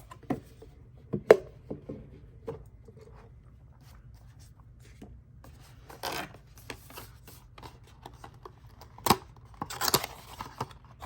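Cardboard box and paper packaging being handled: scattered sharp taps and knocks, the loudest about a second in, with short bursts of rustling about six and ten seconds in.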